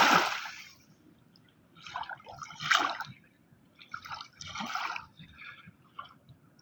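River water splashing and dripping in short, irregular splashes, with a louder splash fading away in the first second.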